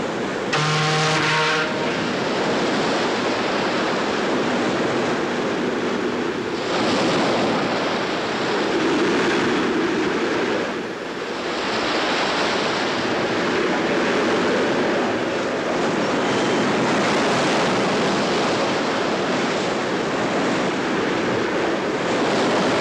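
Rough sea and wind: a steady, dense rush of breaking waves and wind noise. About half a second in, a short pitched tone sounds for about a second.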